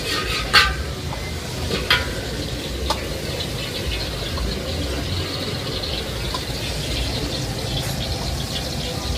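A metal spatula scraping and striking a wok, with three sharp clanks in the first three seconds, over a steady hiss of frying on a gas wok burner and a low rumble.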